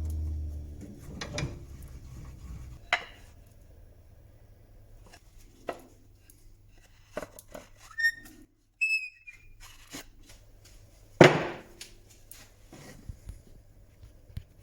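A wood lathe's motor spinning down, its hum falling in pitch over the first two seconds or so, followed by scattered knocks and clicks of wood and tools being handled, with one loud knock about eleven seconds in and a brief high squeak about eight seconds in.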